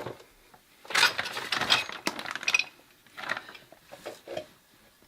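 Metal tools clinking and clattering as they are handled: a sharp click at the start, a burst of rattling about a second in, then a few lighter knocks.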